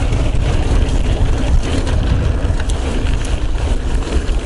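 Mountain bike riding fast down a dirt trail: a steady heavy rush of wind buffeting a chest-mounted action camera's microphone, over tyre rumble, with scattered clicks and rattles from the bike.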